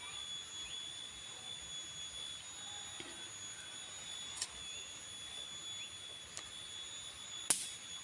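A steady high-pitched whine, with one sharp slap about seven and a half seconds in from a hand striking the freshly sawn sengon plank.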